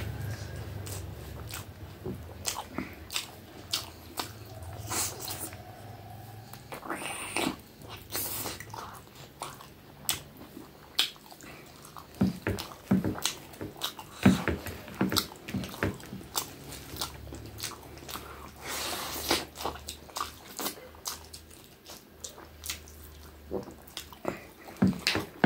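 A person chewing mouthfuls of rice and chicken curry eaten by hand, with many short mouth clicks and smacks.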